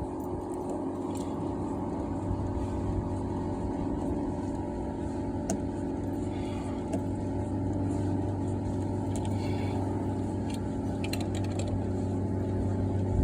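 A steady machine drone with a low hum, carrying several steady tones, and a few faint clicks over it.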